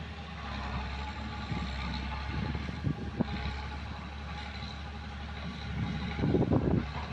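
Diesel engine of an excavator running steadily, with a knock about three seconds in and louder clattering bursts about six seconds in.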